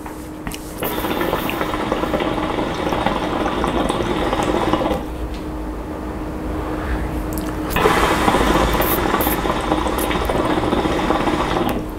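Hookah water base bubbling as smoke is drawn through the hose, in two long pulls of about four seconds each with a pause between them.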